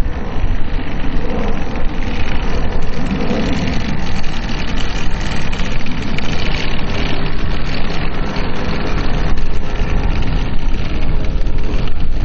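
Engine of a large RC scale model biplane running as it comes in low and lands, under heavy wind rumble on the microphone.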